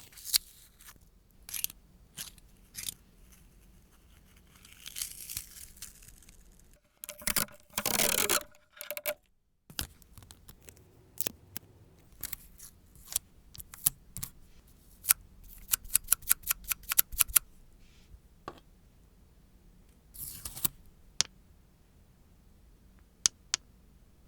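Nail tools handled close to the microphone: scattered sharp clicks, snips and scrapes, with a louder rushing scrape about seven seconds in and a quick run of clicks around fifteen seconds in.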